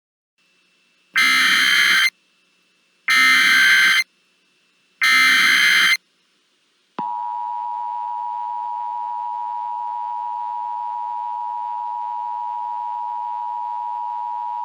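Emergency Alert System header: three one-second bursts of SAME digital data tones, evenly spaced. About seven seconds in, the steady two-tone EAS attention signal starts and holds.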